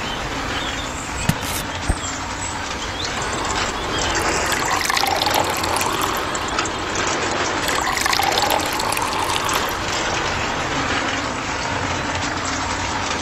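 Water pouring and splashing into a small plastic toy concrete-mixer drum, a steady pouring noise that swells and wavers in the middle. Two light knocks come about one and two seconds in.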